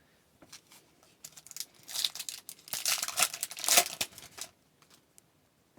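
A 2017-18 Upper Deck Series 1 hockey card pack's foil wrapper being torn open and crinkled: a few small clicks, then a run of rustling, tearing bursts from about one to four and a half seconds in.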